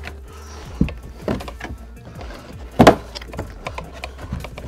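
Background music, with knocks and clunks of a BMW F20's plastic boot liner panel being worked loose; one sharp knock about three seconds in is the loudest.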